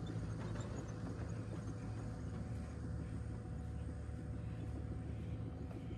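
Wind buffeting the microphone on an open beach: a steady, fluttering low rumble.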